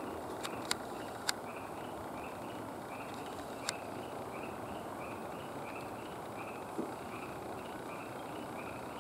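Steady outdoor background rumble with a small animal chirping evenly, a short high chirp about twice a second. A few sharp clicks come in the first few seconds.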